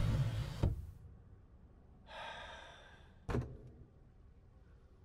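A low rumble of background noise cuts off within the first second. In quiet, a man breathes out in a long sigh about two seconds in, followed by a single sharp click.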